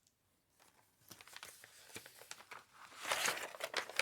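Paper packaging of a stationery box being peeled open, crinkling and tearing, starting about a second in and getting louder near the end.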